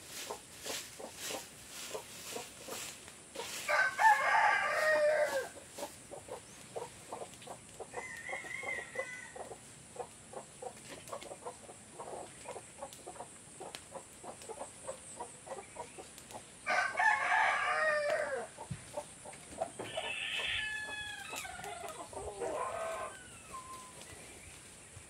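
Roosters crowing: one long crow about four seconds in and another about seventeen seconds in, followed by a few shorter chicken calls. A steady high-pitched whine runs underneath, with faint ticking in the first few seconds.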